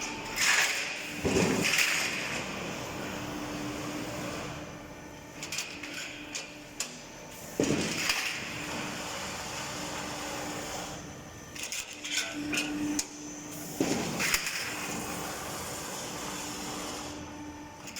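Drywall profile roll forming machine running with a steady hum, its cutting unit striking three times, about six seconds apart, with a loud clank each time. Lighter clicks and rattles come in between.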